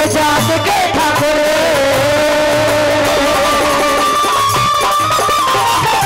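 Instrumental music from a live Haryanvi ragni band: a melody instrument holds long, gliding notes over a steady, repeating drum beat, with no singing.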